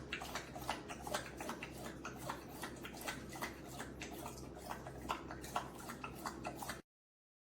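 A dog lapping water from a fountain bowl: quick, irregular wet clicks, several a second, over a steady low hum. It cuts off suddenly near the end.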